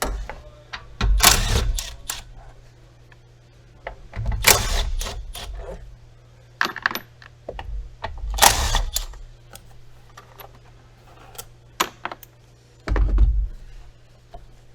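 Plastic airbox being worked loose and lifted out of a car's engine bay: scattered clicks and clinks of clips and tools, with four louder bouts of knocking and scraping.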